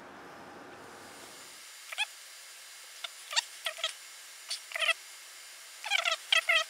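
An animal giving a series of short, high chirping calls, about a dozen in quick clusters, starting about two seconds in and coming fastest near the end.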